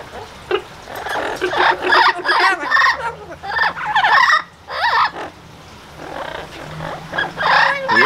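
Amazon parrots calling: a run of squawking, warbling calls with quick pitch bends, a pause of a second or two, then more calls near the end.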